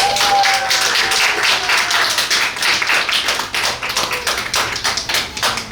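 Audience applauding in a small room, breaking out suddenly and thinning out near the end, with one long falling whoop over the first few seconds.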